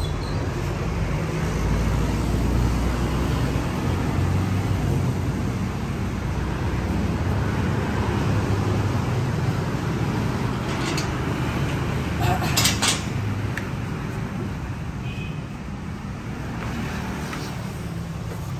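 Road traffic going by: a steady rumble of passing vehicles, with a couple of sharp clicks about two-thirds of the way through.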